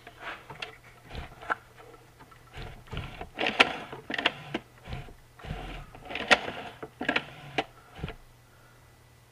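Honda EU2000i generator's small four-stroke engine being turned over slowly by hand toward top dead center on the compression stroke: a string of short mechanical whirs and clicks, with the loudest in the middle.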